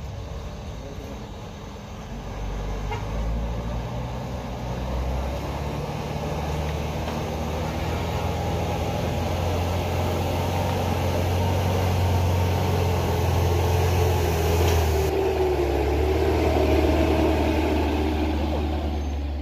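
Diesel engine of a yellow light dump truck pulling up a steep climb, growing louder as it draws near and passes close by.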